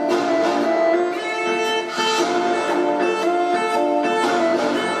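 Instrumental string music playing over an ice rink's sound system: a bowed violin melody over plucked guitar-like strings, the notes changing every fraction of a second.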